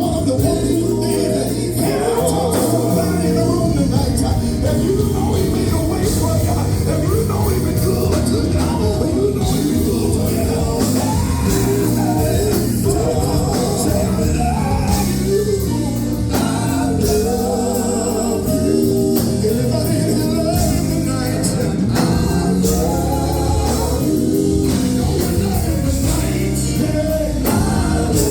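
Live gospel music: a vocal group singing in harmony over a full band with a strong bass line and drums.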